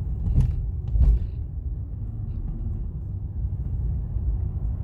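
Road noise inside a moving car's cabin: a steady low rumble. There are two short knocks early on, the second a low thump about a second in.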